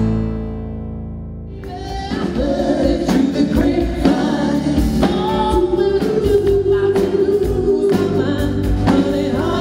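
Music: a low held note fades, then about two seconds in a soul song starts, a voice singing over a band.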